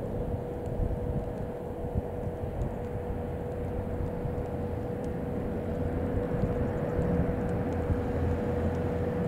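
Four-engine turboprop MC-130 at full power during a touch-and-go, rolling and climbing away: a steady drone with one held tone above a low rumble, growing a little louder over the last few seconds.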